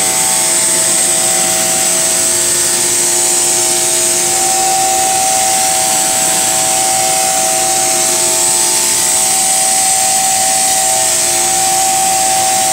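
Pressure washer running, its wand spraying a jet of water against a boat hull to rinse it off. A loud, steady hiss of spray with a steady whine underneath.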